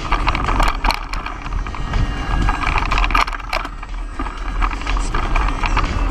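Trek EX7 29er mountain bike ridden fast over a dirt singletrack: a steady low rumble of tyres and wind, with the chain and frame rattling and clacking over bumps, and a cluster of sharper knocks about three seconds in.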